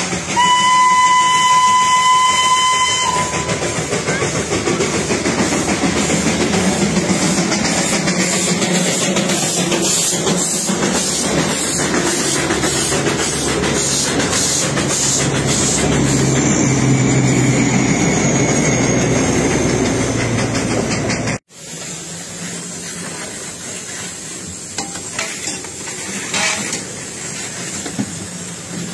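Darjeeling Himalayan Railway steam locomotive sounding a steady whistle for about three seconds, then a loud hiss of steam with a regular beat about twice a second as the train runs in. After an abrupt cut, a quieter hiss close beside the locomotive as water and steam jet from beneath it.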